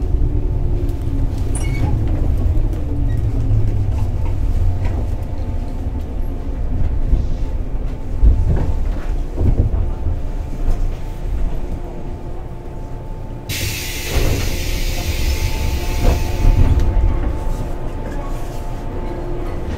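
Inside a JR Kyushu 415 series electric train car standing at a station: a steady low rumble with a constant hum from the car's onboard equipment, and a few faint knocks. About two-thirds of the way through, a sudden hiss of escaping air lasts about three seconds, then cuts off.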